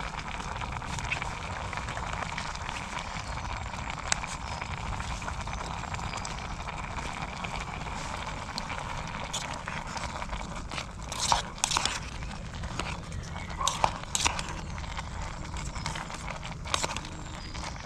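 Gas camping stove burning steadily under a pot of simmering noodles, a steady hiss with a low rumble. From about ten seconds in, scattered light clicks and rustles of handling.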